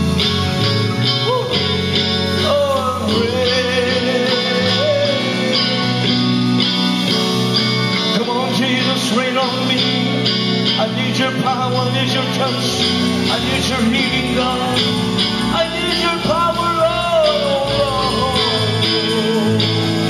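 Live music: a man singing a melody with long, wavering held notes while playing a Telecaster-style electric guitar, over steady low accompaniment.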